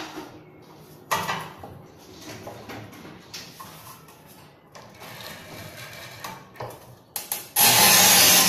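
A few light knocks and taps as a strip of porcelain tile is set against the rail of a Montolit Masterpiuma manual tile cutter. Near the end the cutter's scoring wheel starts scraping along the porcelain, a sudden loud, steady rasp.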